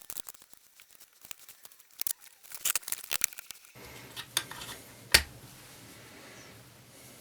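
Small clicks and light metallic taps of hand-work on a guitar, tools and small parts being handled, with one sharp knock about five seconds in.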